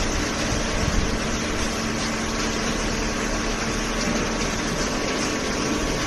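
Horizontal cardboard baler and its feed conveyor running, a steady machine hum over a dense, even noise.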